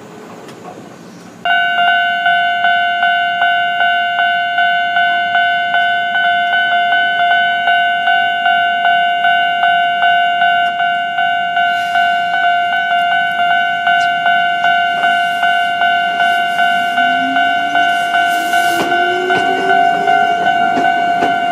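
Japanese level-crossing warning bell starting about a second and a half in and ringing on at about two strokes a second. Near the end a train's motor is heard under it, rising in pitch.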